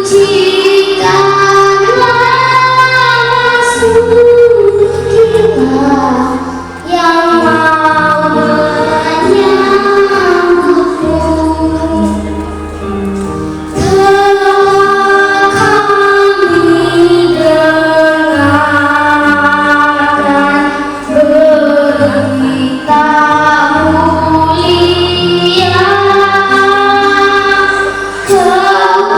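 A child singing a song solo over instrumental accompaniment, the voice holding long notes above sustained bass notes that change with the chords.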